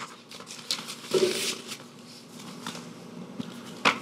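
Papers being handled in a courtroom: soft rustling and scattered small clicks, with a louder rustle about a second in and a sharp click near the end.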